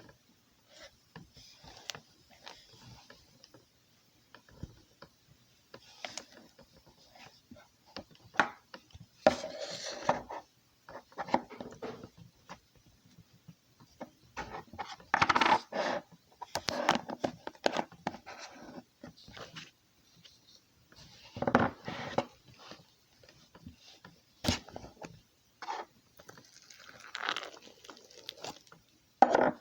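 Slime being squished and pressed by hand: many small sticky clicks and crackles, with a few louder squelching, crackling squeezes spread through.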